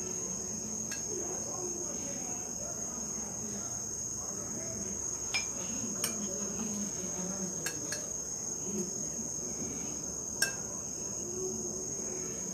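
Crickets trilling steadily in the background, a continuous high-pitched buzz, with a few light, sharp clicks scattered through.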